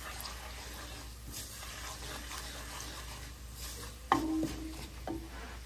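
Wooden spoon stirring a garlic-ginger and spice masala in a pot, the oil sizzling softly over a low flame, with a short knock about four seconds in.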